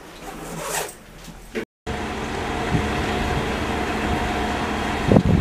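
A diesel locomotive engine idling steadily: a constant hum with several steady tones, starting about two seconds in after quieter creaks inside a railcar cab. A sharp knock near the end.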